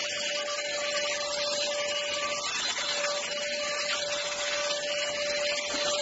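Cordless stick vacuum cleaner running steadily: a constant whine over a broad rushing hiss.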